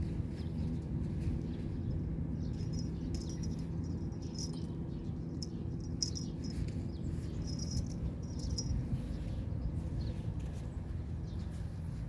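Outdoor ambience: a steady low rumble with clusters of short, high chirps repeating through the middle.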